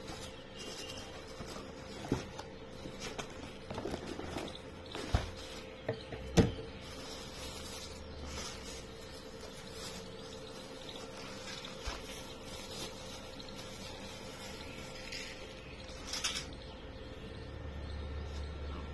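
Handling noises as a JioDive VR headset and its packaging are unboxed: rustling and a few scattered knocks, the sharpest about six seconds in, over a faint steady hum.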